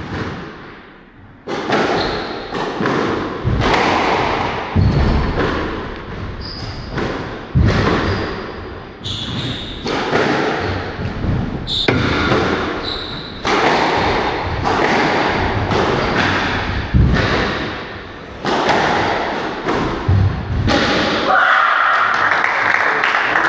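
Squash rally: racquets striking the ball and the ball smacking off the court walls in quick, irregular, echoing hits, with short high shoe squeaks between them. Near the end the hitting stops and the crowd applauds.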